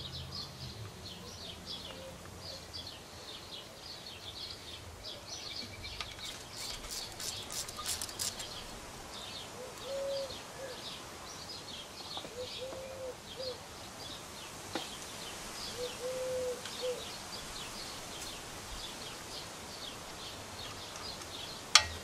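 Songbirds chirping, with many quick high chirps repeating throughout and a few short low notes in the middle. A brief run of light clicks comes about seven seconds in.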